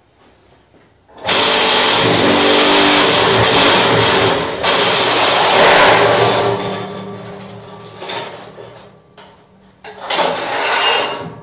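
Electric vibrator motors on a cinder block making machine running and shaking the mould to compact the block mix: a loud rattling buzz with a steady hum under it. It starts about a second in, holds for about five seconds, then dies away as the motors spin down. A shorter loud burst comes near the end.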